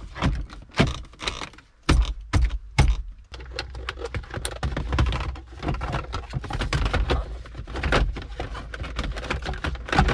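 Irregular clicks, taps and knocks of hands handling car interior trim parts and tools, with a few louder thunks about two and three seconds in.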